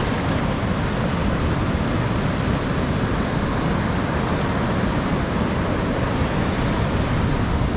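Steady rushing noise of surf breaking and washing up the beach.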